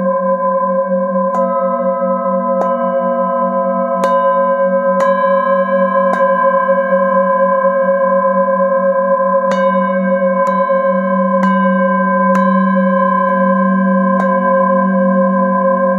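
Metal singing bowls struck one after another with a padded mallet, about ten strikes at uneven intervals. Each strike adds a new ringing tone that sustains over the ones already sounding, above a low pulsing hum.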